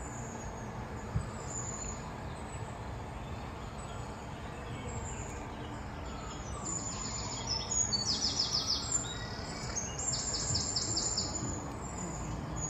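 Low, steady murmur of a stadium crowd, with a few short runs of rapid, high-pitched chirps about halfway through.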